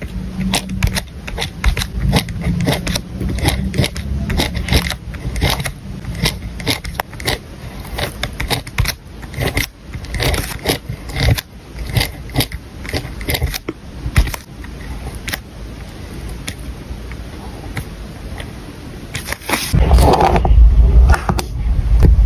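Pen nib scratching and ticking on paper in close-up as letters are written, in many short, irregular strokes. Near the end a louder, deeper sound takes over.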